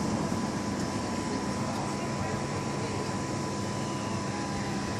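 A steady low mechanical hum under a constant wash of noise, with indistinct voices in the background.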